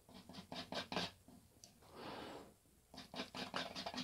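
Steel palette knife mixing oil paint on a palette: faint, short scraping strokes in two quick runs, one near the start and one near the end.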